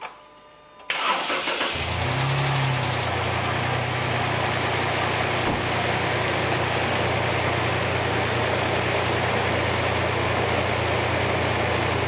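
Dodge Nitro engine cranking briefly and catching about a second in, revving up as it fires and then settling into a steady idle. It is being jump-started on a drained battery from a small portable jump-starter pack.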